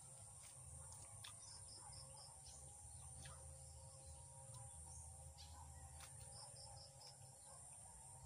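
Near silence: faint outdoor background with two short runs of four quick bird chirps, over a steady high hiss and a few soft clicks.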